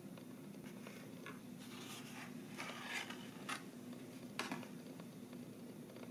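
Paper rustling and scraping in several short bursts as a pencil is slid out of a folded paper sleeve, then a single sharp click about four and a half seconds in.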